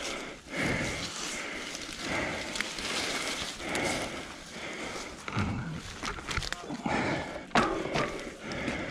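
Out-of-breath panting from a mountain biker after a crash, with footsteps and bike handling on wooden boardwalk planks, and a sharp knock about three quarters of the way through.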